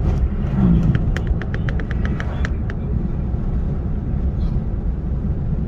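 Steady low road and engine rumble inside a moving vehicle's cabin. About a second in comes a quick run of about a dozen light clicks, lasting around a second and a half.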